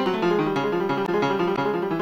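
Background music: a keyboard, piano-like, playing fast, dense runs of notes.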